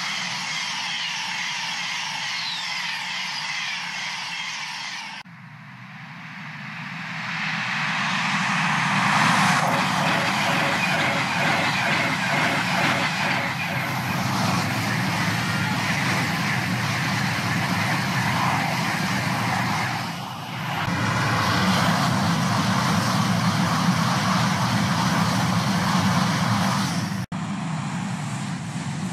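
High-speed electric passenger trains passing at speed, a Virgin Pendolino and then Eurostar trains, heard as a loud, steady rush of wheels on rail and air. The sound breaks off abruptly and restarts at cuts about five seconds in, about twenty seconds in and near the end.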